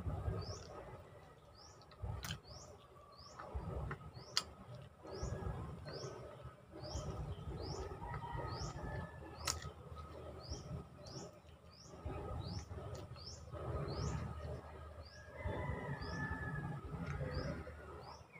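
Close-up chewing and mouth sounds of someone eating stewed milkfish by hand, with a few sharp smacks. A bird chirps in the background, short high rising notes about once a second.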